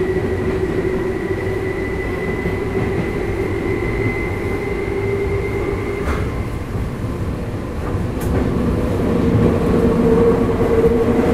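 Tokyu 8590-series commuter train heard from inside its motor car in a subway tunnel: the steady whine of its field-chopper traction control and motors over wheel and rail rumble. About six seconds in the whine changes, and from about eight seconds in it grows louder with a new, lower pair of tones.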